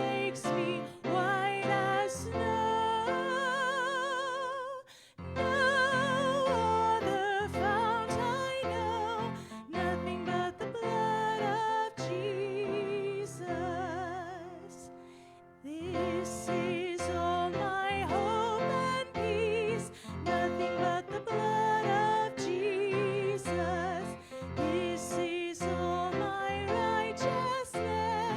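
Church worship music: a singer holding notes with wide vibrato over instrumental accompaniment, with a brief break about five seconds in.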